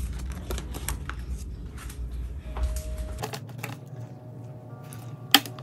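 Photocards and plastic binder sleeves being handled: irregular light taps and clicks, with one sharper click near the end.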